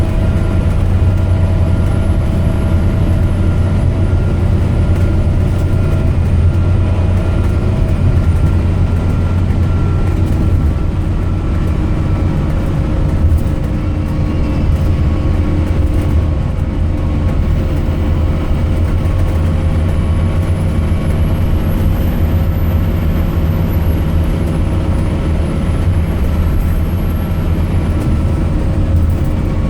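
Scania K270UB Omnilink bus's five-cylinder diesel engine and drivetrain running steadily under way, a heavy low rumble with several whining tones that drift slowly in pitch.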